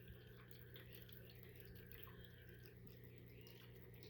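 Near silence: a faint steady low hum with faint, scattered soft clicks and ticks.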